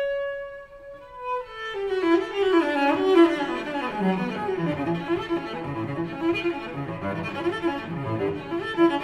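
Background classical music on bowed strings: a long held note gives way about a second in to a falling line of notes, then fuller, busier playing with low notes.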